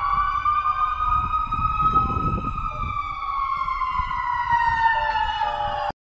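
Emergency vehicle siren: one long tone that rises a little and then slowly falls in pitch, over a low traffic rumble. It cuts off abruptly near the end.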